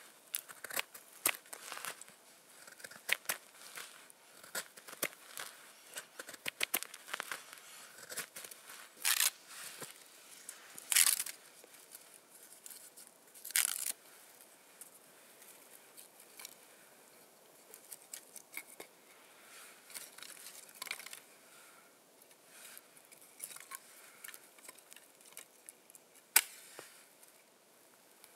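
A knife blade shaving thin curls off a dry wooden stick to make a feather stick: a quick run of short scraping strokes, some louder. After that, split kindling sticks are laid and knock lightly together, with a single sharp click near the end as a match is struck.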